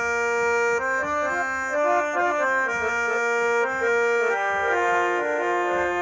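Music: an instrumental break in a sung folk song, a melody of held notes stepping from one to the next on a reed instrument.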